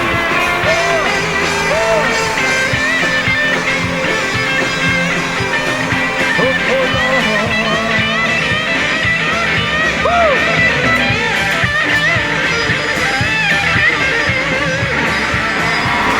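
Gospel band music in an instrumental passage, with a lead guitar playing bending, wavering notes over the full band.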